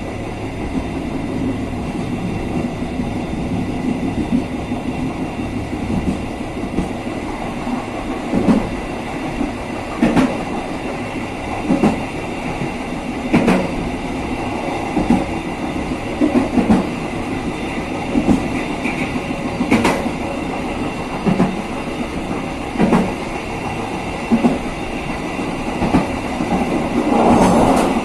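Passenger train running along the rails with a steady rumble, its wheels clacking over rail joints about every second and a half. A faint steady high whine runs under it, and a louder rushing swell comes near the end.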